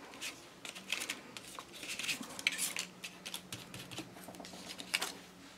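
Soft scuffing and light tapping of a foam ink-blending tool worked over a plastic stencil on watercolour paper, with small clicks and rustles as the paper and stencil are handled. It comes in short, uneven strokes, with a few brief swishes about two to three seconds in and again near five seconds.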